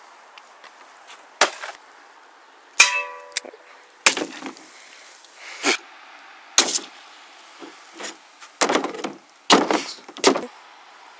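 A knife being stabbed repeatedly into an aluminium soda can on a plastic play table: about ten sharp knocks and clangs spaced irregularly, the loudest a ringing clang about three seconds in.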